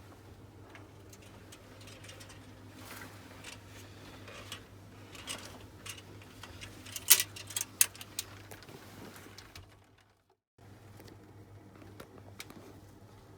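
A faint, steady low hum with a scatter of light clicks and knocks, sharpest about seven seconds in. The sound drops out completely for about half a second near ten seconds.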